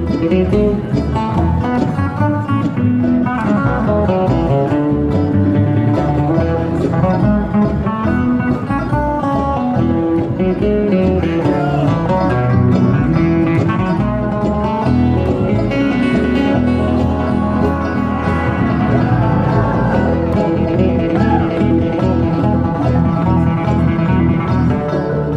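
Bluegrass band playing live: acoustic guitar, banjo and upright bass.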